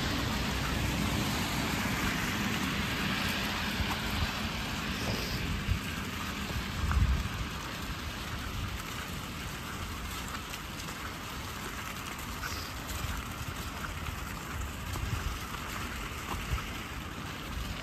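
Steady hiss of car tyres on a wet road, with wet-weather ambience. It is louder in the first seconds as a car goes by and eases off after, with a brief low bump about seven seconds in.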